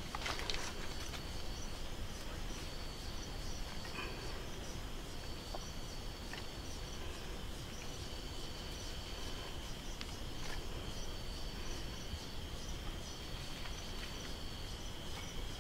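Tropical insects calling steadily: one constant high trill runs throughout, and a second, higher buzzing call repeats in phrases of about a second and a half with short gaps between them. A few faint clicks come in near the start.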